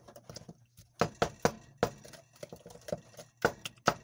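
Wooden spoon stirring thick cookie dough in a glass mixing bowl, working in cream cheese: a run of uneven knocks and clicks against the glass, most from about a second in.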